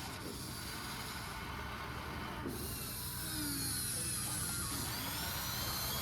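Small electric motors and gears of a remote-control model excavator whining and grinding, the whine sliding up and down in pitch and growing louder about two and a half seconds in.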